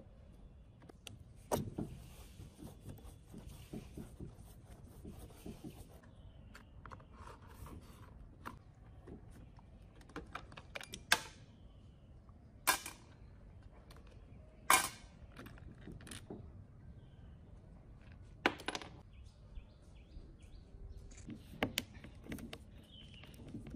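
Hand tools and loose screws clinking and clicking against metal while the saw's handle screws are undone: scattered small clicks with about five sharp, brief metallic clinks.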